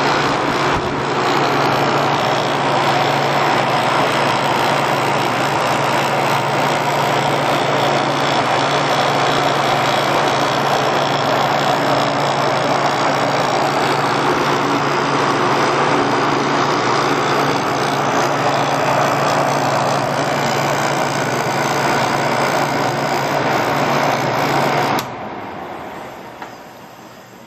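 LG QAO75CBF rotary compressor running steadily: a constant low hum under a loud, even noise. The sound drops off sharply near the end and fades away.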